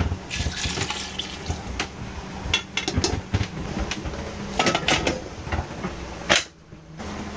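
Water poured from a saucepan into a stainless-steel pressure cooker, then a series of metal clanks and clicks as the pressure-cooker lid is put on.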